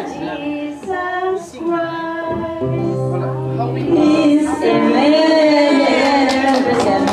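A high voice singing a slow worship-song melody, with a long wavering held note in the second half.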